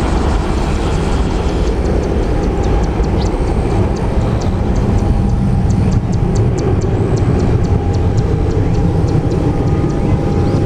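Jet engines of an Airbus A320-200 at takeoff power: a loud, steady rumbling roar with a faint steady whine in it.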